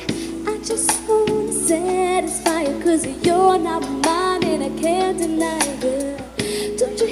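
A pop-soul song with a woman singing over instrumental backing, played through an Audio-Technica AT-SPG50 compact speaker.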